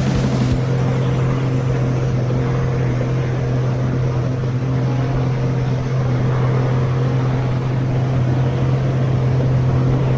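Jet ski engine running steadily, a constant, unchanging drone.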